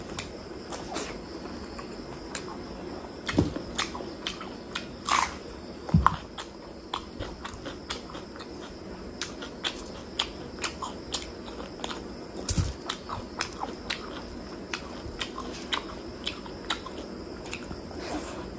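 Close-miked chewing and wet mouth sounds of someone eating chicken heart, liver and gizzard curry with rice by hand: irregular smacks and squishy clicks, with a few louder bites about 3, 5, 6 and 12 seconds in.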